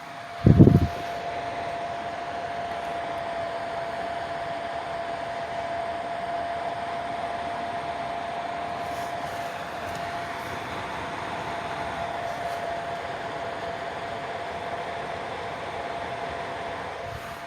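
Twin Star infrared fan heater's blower running with a steady rush of air and a thin steady whine, starting up louder just after a short knock about half a second in. The air noise drops back down near the end.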